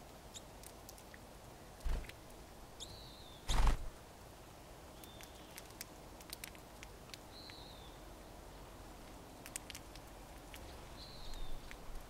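Crossbills cracking sunflower seeds at metal tube feeders: a scatter of sharp little clicks, with four short, high, down-slurred bird calls. Two loud dull thumps come near 2 and 3.5 seconds.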